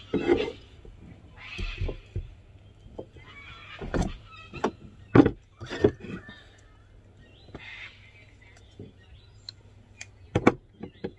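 A knife knocking on a wooden chopping board while slicing canned Spam, then a metal tin set down on the board, with several sharp knocks and clicks. Near the end a handheld can opener clicks as it is clamped onto the tin's lid.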